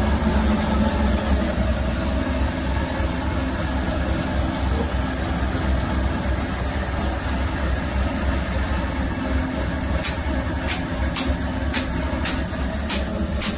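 Steady machine hum, heavy in low drone, from a running rig where an electric motor is belt-coupled to a large drum and a fan heater is blowing. Near the end come about seven sharp clicks, nearly two a second.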